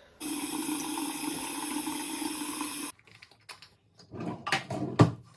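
Water running steadily from a tap for about three seconds, starting and stopping abruptly, then a few scattered clicks and knocks, the loudest a sharp knock near the end.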